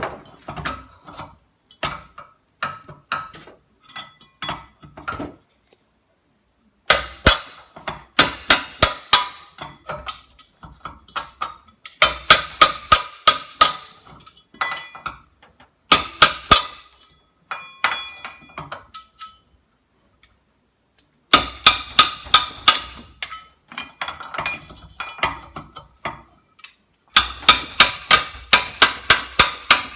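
Hammer blows on a crowbar wedged against a stuck crankshaft pulley, metal striking metal with a ringing clink. The blows come in runs of several a second, with pauses between, and the pulley does not come free.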